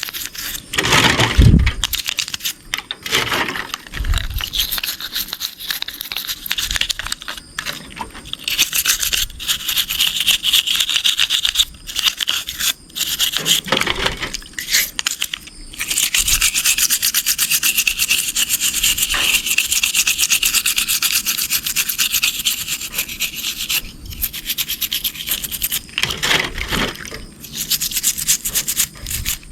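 A brush scrubbing an RC car: quick rubbing strokes in runs with short pauses, and a couple of low bumps in the first few seconds.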